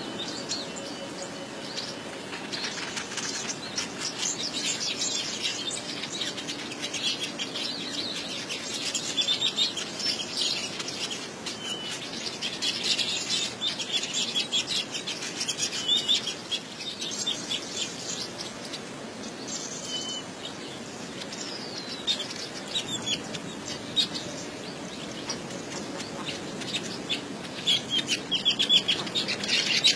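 Small birds chirping in quick, repeated calls, with wing flutters, growing busier and louder near the end.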